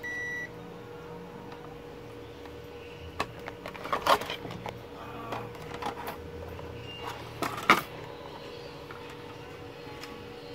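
A digital multimeter's continuity beeper sounds one short high beep, then test probes and a TV circuit board being handled give scattered clicks and knocks, the sharpest near the end. A faint steady hum runs underneath.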